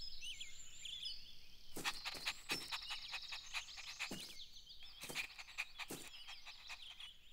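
Faint birdsong ambience of many short, quick chirps, with about a dozen short, sharp sounds scattered through it.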